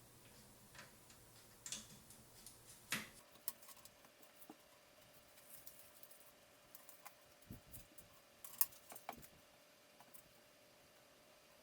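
Scattered light clicks and taps of hands handling computer hardware, with a sharper knock about three seconds in and another, the loudest, about three seconds before the end. A faint steady hum comes on about three seconds in.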